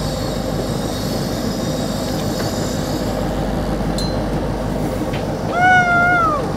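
Steady rumble and rush of a trolling boat's engine and water. A single click comes about four seconds in, and near the end a short, loud, high, held whine with an overtone rings for under a second and drops in pitch as it stops.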